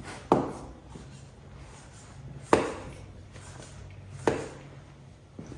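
Front forks of a 2022 Honda Grom (MSX125), fitted with YSS suspension and the recommended 10-weight oil, pushed down hard and bottoming out three times, each with a sharp clunk. The forks bottom out far too easily, showing too little damping for the rider's weight.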